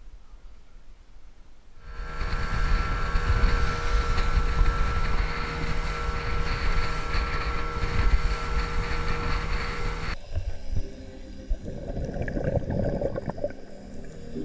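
Small open motorboat running at speed: engine drone with steady whining tones under a rush of wind and water. It starts suddenly about two seconds in and cuts off abruptly near ten seconds, giving way to a quieter, uneven underwater sound.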